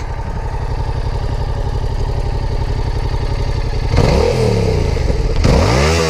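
Yamaha MT-07's 689 cc parallel-twin engine idling with an even pulsing rumble, heard close to its short stock exhaust, then revved twice: a short blip about four seconds in and a higher rev near the end, each rising in pitch and falling back.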